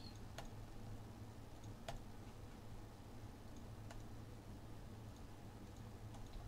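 Quiet room tone with a steady low hum, broken by three faint, sharp clicks spaced about one and a half to two seconds apart.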